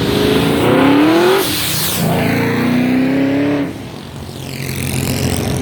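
A loud car accelerating hard, its engine revving up twice with a break in between, like a gear shift, then dropping off as it pulls away.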